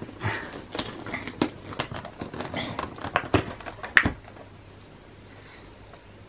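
Fingers working at a cardboard advent calendar box: a run of clicks, taps and card scrapes, with the loudest a sharp snap about four seconds in.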